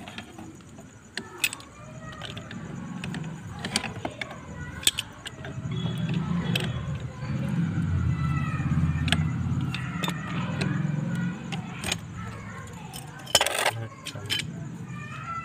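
Pipe wrench clinking and scraping against the metal outlet fitting of a monoblock water pump as the fitting is worked. There are sharp metallic clicks throughout and a louder clank near the end, and a low rumble swells in the background through the middle.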